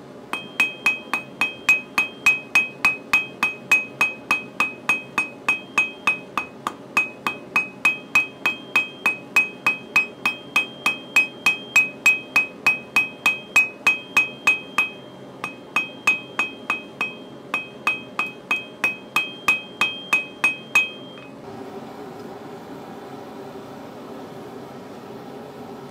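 Hand hammer blows on steel on a 30 kg anvil while a hook is being forged: a steady run of about two to three strikes a second, most with a bright metallic ring, broken by a few short pauses. The hammering stops about 21 seconds in, leaving a steady hum.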